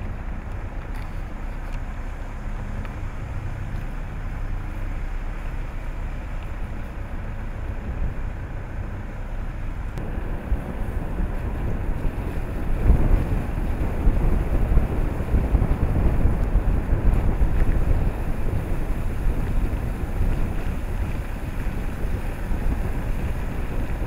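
Car driving slowly, a steady low rumble with wind buffeting the microphone, gustier and louder from about halfway through for several seconds.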